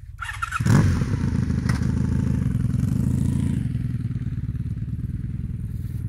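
Motorcycle engine running with a steady low rumble. It comes in suddenly just under a second in and eases off slightly near the end.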